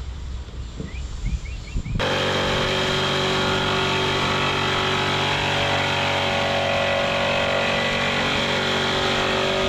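Electric jigsaw cutting a plywood panel, running at a steady pitch with a constant whine and blade rasp. It starts abruptly about two seconds in, after a little low outdoor background.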